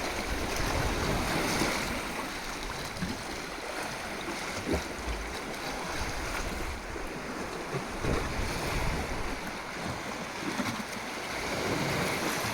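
Ocean surf: waves washing in with a continuous rushing that swells and eases, with some low wind rumble on the microphone.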